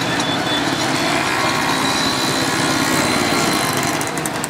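A small engine running steadily amid road traffic noise.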